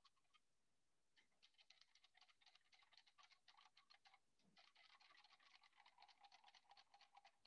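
Very faint, fast clicking of a utensil beating eggs into buttermilk in a liquid measuring cup, about eight strokes a second, with short pauses about half a second in and around four seconds in.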